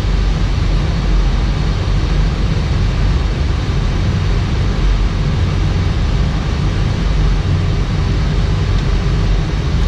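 Steady flight-deck noise of an Airbus A319 in flight on approach: a deep, even rush that holds level throughout.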